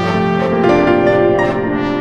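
Symphonic orchestral music, with brass playing full held chords that shift several times and accented strokes on top.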